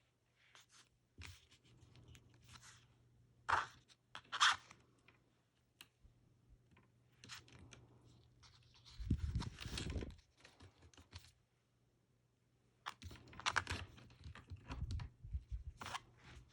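Picture-hanging wire being threaded through and twisted around a hanger screwed into the back of a canvas frame: scattered small metal clicks, scrapes and handling rustles, with two sharper ticks a few seconds in and a longer rustle with a soft thump about midway.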